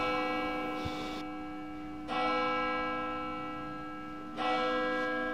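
A church bell tolling three slow strokes about two seconds apart, each ringing out and fading.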